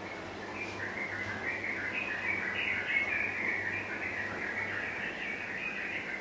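A dense chorus of many birds chirping together, short high calls overlapping, swelling about a second in. A faint steady electrical hum lies underneath.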